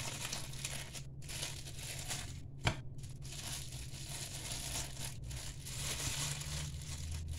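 Thin plastic film crinkling and rustling as hands unwrap a stick of Milliput epoxy putty from its clear plastic wrapper and handle a plastic bag, with one light knock a little under three seconds in.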